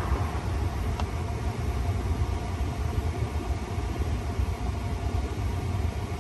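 Steady low rumble of an idling diesel truck engine heard inside the cab, with a single faint click about a second in.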